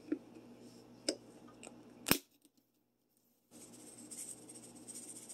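A few sharp clicks from handling a plastic seasoning shaker, the loudest about two seconds in, followed by a brief dead silence. Then a faint hiss and rattle as pepper-garlic seasoning is shaken onto raw pork chops.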